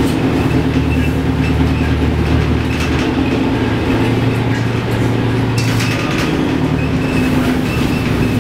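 LiAZ-677M bus's V8 engine running under way, heard from the rear of the cabin over the noise of the moving bus, its note shifting a couple of times as it drives.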